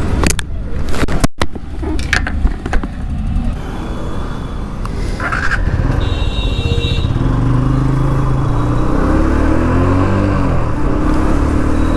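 Motorcycle engine running while riding, picked up by a clip-on mic: heavy wind buffeting with sharp crackles in the first few seconds, then the engine note rising and falling with the throttle.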